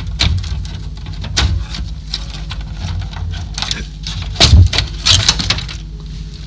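Irregular knocks, taps and rattles of tools and parts being handled on a repair bench, over a steady low hum.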